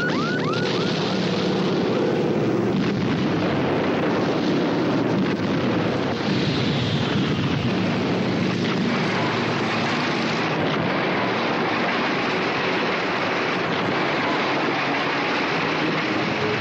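A steady, dense wash of noise like wind and surf with a low engine drone beneath it: a dubbed sound-effects bed for a seaborne landing. A few quick chirping glides sound in the first moment.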